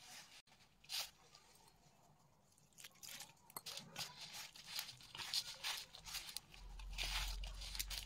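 Hand squeezing and working stiff, crumbly maida-flour dough for mathri, with soft irregular crunching and rustling, pausing briefly about two seconds in. A low hum comes in near the end.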